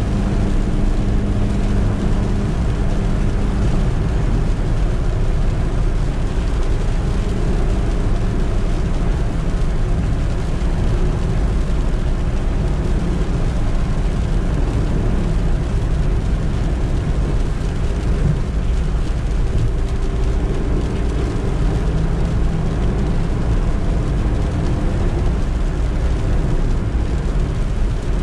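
A Suzuki Eeco's 1.2-litre engine running while the van is driven, with steady road rumble. The engine tone shifts a little in pitch now and then but no sharp rev changes stand out.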